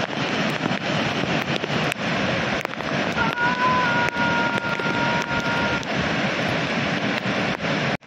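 Dudhsagar Falls in monsoon flow: a steady, loud rush of falling water, with wind and spray crackling on the microphone. About three seconds in, a faint steady two-note tone sounds for about two and a half seconds.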